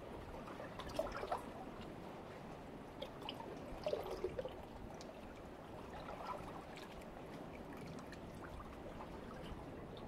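Calm seawater lapping and gurgling against shoreline rocks, with small splashes about a second in and again around four seconds in.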